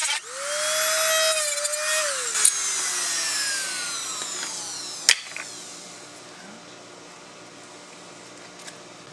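Handheld rotary tool cutting plastic supports off a speaker mount. Its whine stops just at the start and picks up again at once, cuts for about two seconds, then falls in pitch as the tool is switched off and spins down. A sharp click follows about five seconds in.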